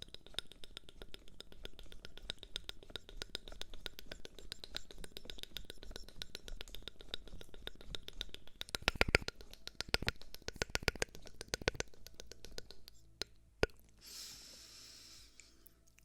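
Close-miked ASMR trigger sounds: a fast, dense run of small clicks and taps, louder in a cluster a little past the middle, then one sharp click and a brief soft hiss near the end.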